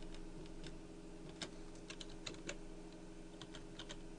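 Computer keyboard typing: a dozen or so irregular keystrokes as a file name is typed, over a steady low hum.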